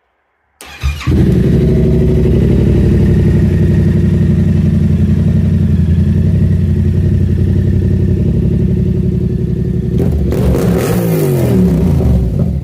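A 2022 Yamaha MT-07's parallel-twin engine fires up about half a second in and idles steadily. Near the end it is revved up and down a few times.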